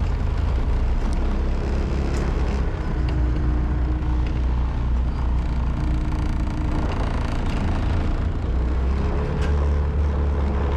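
Steady running noise of a moving vehicle on a dirt road: a constant low rumble with a faint engine hum.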